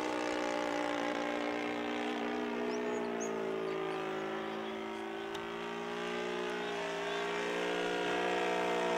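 Engine of a 1:6 scale radio-controlled Fieseler Storch model plane running steadily in flight, its pitch rising and falling slightly as it flies past.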